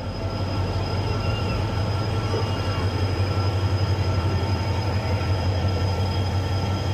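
Train at a railway station platform: a steady low hum with a few thin, steady high tones over it.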